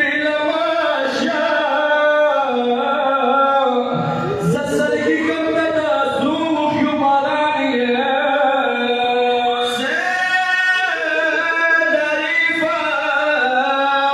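Men's voices chanting a devotional lament in long held notes that bend slowly in pitch, without pause.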